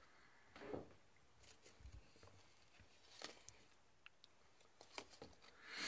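Near silence: room tone with a few faint, short clicks and soft rustles.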